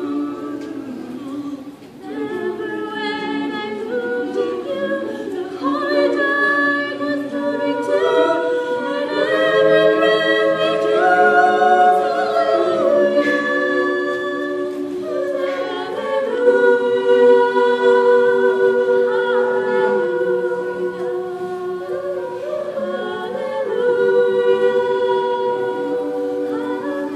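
Mixed-voice a cappella ensemble of about ten singers singing held chords in close harmony, with a short break about two seconds in.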